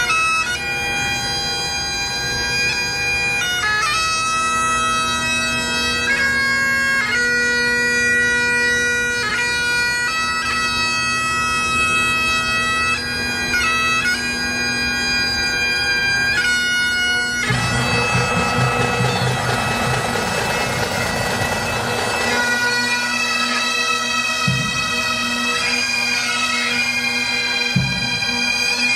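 Great Highland bagpipes playing a slow tune over a steady drone. About two-thirds of the way in, a rush of noise lasting a few seconds partly covers the pipes.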